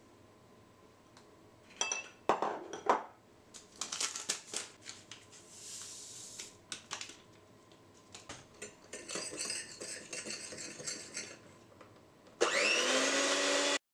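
Electric hand mixer starting up in a glass bowl of eggs and sugar about a second before the end, its motor whine rising in pitch as it spins up and then running steady and loud. Before it, light clinks and knocks, the soft hiss of vanilla sugar poured from a paper sachet, and rustling.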